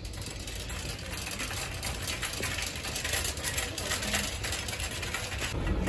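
Shopping cart being pushed across a smooth store floor, its wheels and wire basket rattling steadily.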